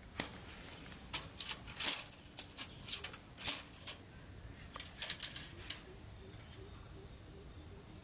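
Irregular sharp clicks and rustles in quick clusters, stopping about six seconds in, followed by faint, evenly spaced pips.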